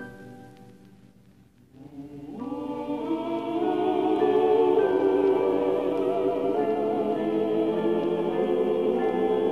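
Recorded music: the last notes of a harp run die away, then a choir comes in about two seconds in and holds long, wavering notes that swell.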